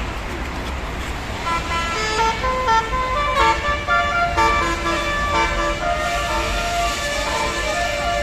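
Bus basuri musical air horn playing a telolet melody: a run of held notes stepping up and down in pitch several times a second, starting about a second and a half in, over a steady low rumble.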